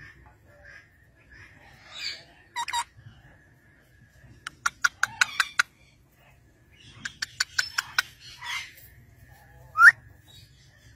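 Alexandrine parakeets chattering softly, with two quick runs of sharp clicks in the middle and one short rising call near the end, the loudest sound.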